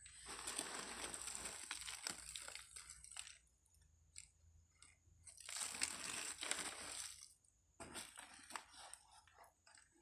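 Crumpled newspaper packing rustling and crinkling as plants are handled in a cardboard box: two long spells of rustling, one starting just after the beginning and one around the middle, then a few scattered crackles near the end.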